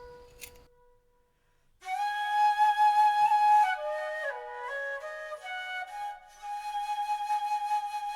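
Flute music as background: after a short pause, a melody begins about two seconds in, with long held notes and stepping pitch changes.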